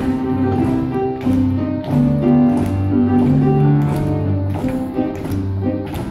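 Upright piano playing a bouncy accompaniment with a steady beat, low bass notes alternating with chords.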